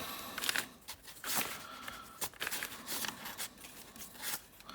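A loose, unlubricated plastic 4×4×2 cuboid twisty puzzle being turned by hand: irregular clicks and clacks as its layers turn.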